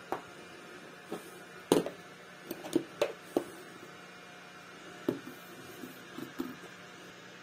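Hard plastic solar garden stake lights clacking and knocking as they are handled: a dozen or so short knocks in irregular clusters, the loudest about a second and a half in, over a faint steady hum.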